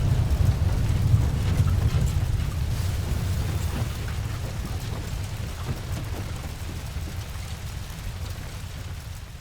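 Tail of an airplane-crash-into-building sound effect: a deep rumble with faint scattered debris crackle, dying away steadily.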